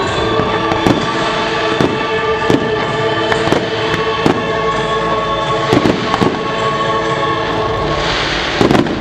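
Aerial fireworks shells bursting with sharp bangs about once a second, with a quick cluster of bangs near the end. Music with long held notes plays underneath.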